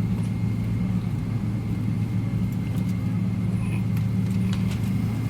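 Steady low cabin drone inside a Boeing 777-300ER on the ground before takeoff, a deep hum with a faint thin whine above it. A few faint clicks near the end.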